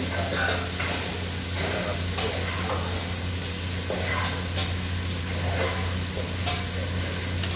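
Chicken pieces with onion and garlic sizzling in an aluminium pot while a metal spoon stirs them, scraping and clinking against the pot now and then, over a low steady hum.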